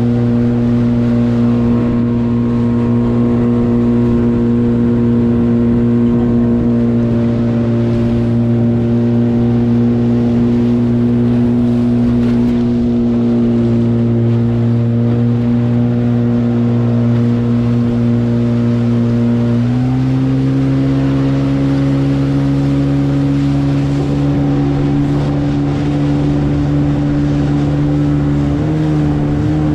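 Small motorboat's outboard motor running at a steady cruising speed. Its pitch steps up about two-thirds of the way through as the throttle is opened, and rises a little again near the end. Beneath it is the rush of water along the hull.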